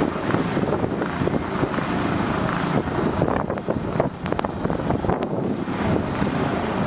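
Wind buffeting the microphone in a blizzard: a loud, rough, steady rumble broken by many short crackles.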